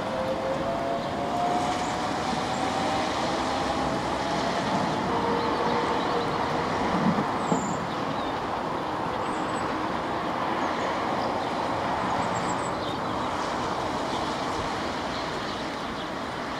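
Class 466 Networker third-rail electric multiple unit accelerating away, its traction motors whining and rising in pitch over the first few seconds over a steady rumble of wheels on rail.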